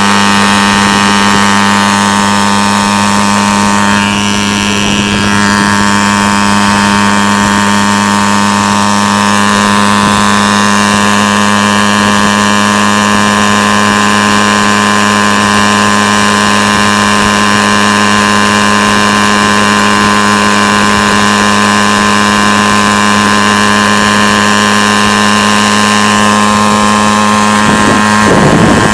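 Jawa Babetta moped's 50 cc two-stroke single-cylinder engine running with no exhaust fitted: a loud, steady, unmuffled buzz at cruising speed. A brief rush of noise comes near the end.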